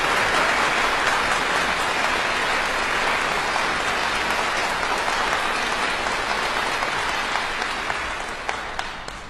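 Audience applauding in a concert hall, a dense steady clapping that dies away near the end, leaving a few scattered last claps.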